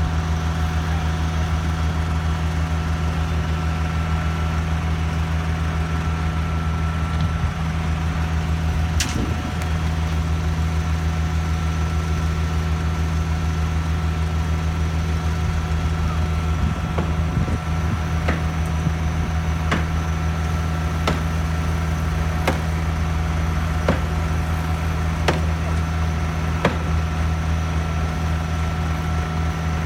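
Concrete boom placer machine running with a steady low drone. Sharp knocks come once about nine seconds in, then recur about every second and a half through the second half.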